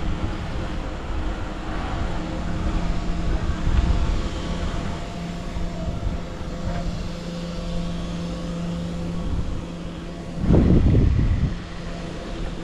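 Steady motor-vehicle engine hum of street traffic, with a louder swell lasting about a second near the end.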